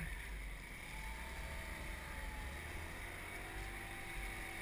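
A small motor scooter's engine running, a faint whine that bends slowly in pitch over a steady low rumble.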